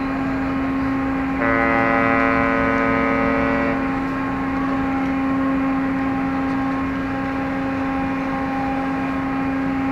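A ship's horn sounds one held blast of about two seconds, starting about a second and a half in. Under it, the ferry's engines run with a steady drone.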